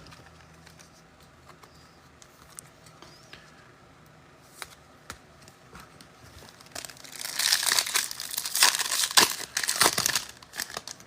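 Faint handling clicks, then about seven seconds in a football trading card pack's wrapper is crinkled and torn open, loud and crackly for about three seconds.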